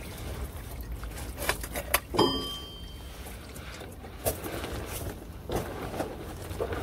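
Old gear oil trickling and dripping from the Mercedes Sprinter 313 manual gearbox's drain hole into a drain pan, an irregular patter over a steady low hum. About two seconds in, a sharp clink rings briefly.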